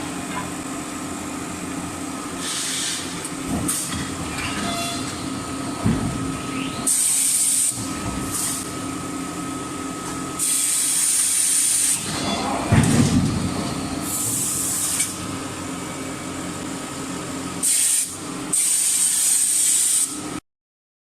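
Forging line with an electric screw forging press working: a steady machine hum, hissing bursts about a second long several times over, and a few heavy thuds. The sound cuts off suddenly near the end.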